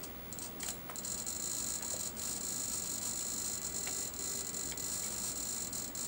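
DJI Zenmuse Z15n gimbal's brushless motors giving off a steady, high-pitched hiss while the camera is steered in pan under joystick control.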